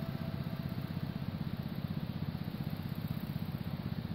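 A small engine running steadily, a low, even, rapid pulse.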